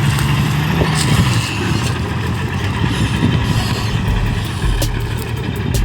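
Small car engine running steadily as the car drives, with a deep rumble coming in about four seconds in and light knocks and rattles throughout.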